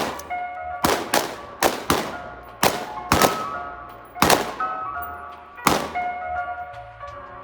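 Gunfire: about nine shots at irregular intervals, some in quick pairs, over background music with bell-like notes.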